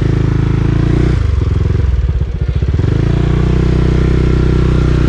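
Honda ADV350 scooter's single-cylinder engine pulling under load through a water crossing on a rough trail. The throttle is eased off and reapplied twice in the first three seconds, then held steady.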